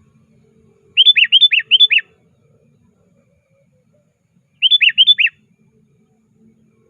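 Male sooty-headed bulbul (kutilang) singing its call to rivals: two short phrases of quick, down-slurred whistled notes. The first phrase has four notes, about a second in. The second has three notes, a few seconds later.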